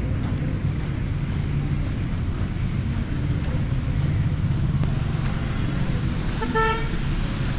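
Street traffic: a steady low engine rumble, with one short vehicle horn toot near the end.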